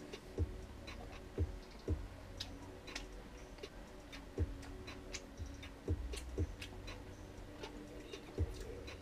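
Faint chewing of a mouthful of cookies soaked with milk: small wet clicks and ticks, broken by about seven soft low thumps at uneven intervals.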